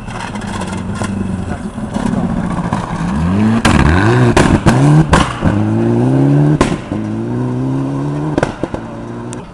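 Rally car engine passing at speed: the revs rise and fall sharply as it slows and changes down, with several sharp cracks at the loudest moment, about halfway through. It then accelerates away, pulling up through the gears, and fades near the end.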